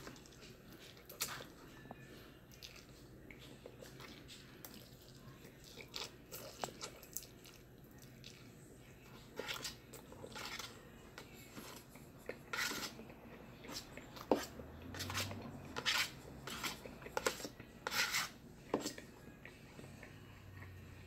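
Faint sounds of a man eating a bowl of noodles with a fork: chewing and slurping, in short separate bursts that come more often and louder in the second half.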